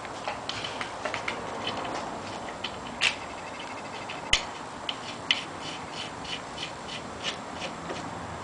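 Steel lug nuts being put on by hand onto the wheel studs through the legs of a hub puller: a run of light metallic clicks and clinks, with the sharpest ones about three and four and a half seconds in.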